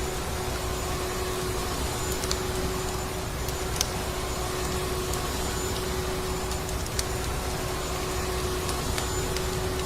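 Vacuum cleaner running steadily: an even rushing noise with a constant motor hum. A few sharp crackles, like a wood fire's, sound now and then.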